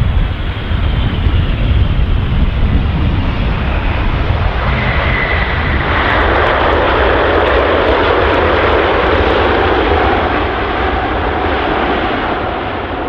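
Airbus A380's four jet engines during touchdown and landing rollout: a steady low rumble with engine noise above it, growing louder and fuller about six seconds in.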